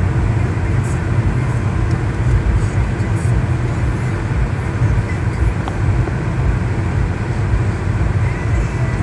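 Steady low road rumble heard from inside a moving car's cabin: tyre and engine noise at an even cruising speed.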